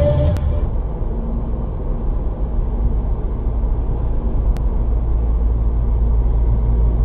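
Steady low rumble of a car driving in traffic, engine and tyre noise picked up by a dashcam inside the car.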